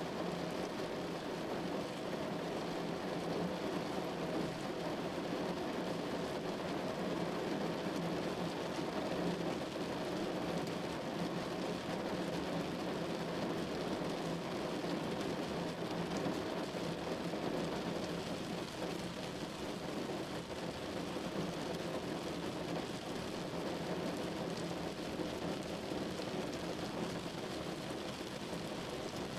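Steady rain falling on a window pane, a dense even patter with a low rumbling undertone.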